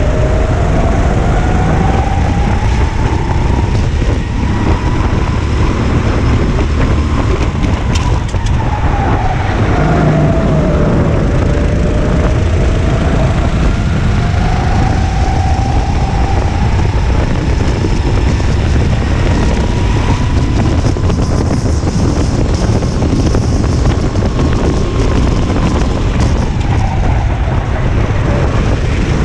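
Go-kart engine heard onboard at racing speed, its pitch rising and falling as it speeds up on the straights and slows for corners, over a heavy low rumble.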